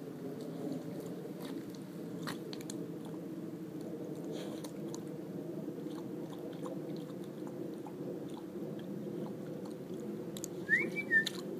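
Bernese Mountain Dog puppy mouthing and chewing at the wet ground: soft, scattered licking and chewing clicks over a steady low background hum. Near the end come two short, loud, high chirps, the first rising in pitch.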